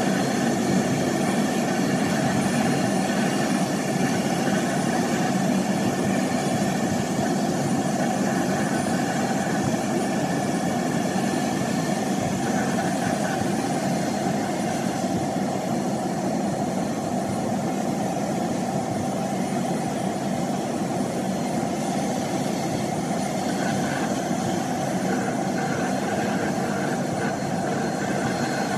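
Medical helicopter running on the ground: a steady engine and rotor drone with faint high, steady whining tones over it.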